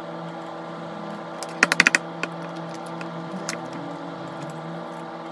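Typing on a laptop keyboard: a quick run of key clicks about a second and a half in, then a few scattered single clicks, over a steady hum.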